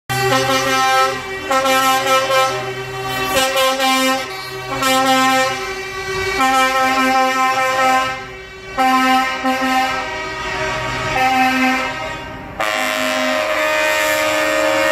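Lorry air horns honking in a string of repeated blasts, several horns overlapping in chords. About twelve and a half seconds in, a different, louder horn chord starts and holds one long steady blast.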